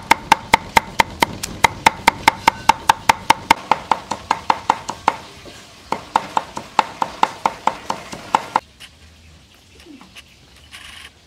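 Cleaver chopping garlic on a round wooden chopping block: a steady run of sharp knocks, about four or five a second, with a short pause about five seconds in, then stopping about three-quarters of the way through.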